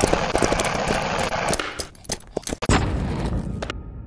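Logo-intro sound effects: a rapid clatter of sharp hits over a rushing noise, one heavy hit a little before three seconds in, then a sudden cutoff near the end that leaves only a faint low hum.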